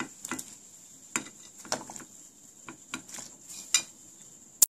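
Metal spoon clinking and scraping against a plate and the pot as pieces of pork leg are pushed off into a pot of simmering water, in irregular light clinks, with one sharp click just before the end.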